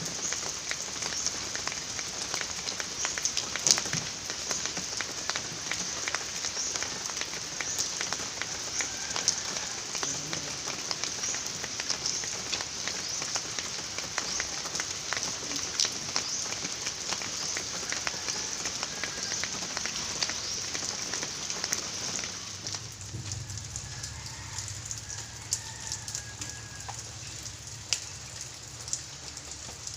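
Steady rain falling, with many individual drops ticking sharply through the hiss. About twenty seconds in, the rain grows quieter and a low hum comes in beneath it.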